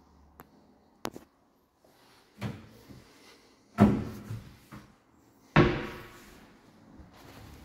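Doors being shut inside an empty flat: a light click about a second in, then three bangs, the loudest about four seconds in, each dying away over about half a second.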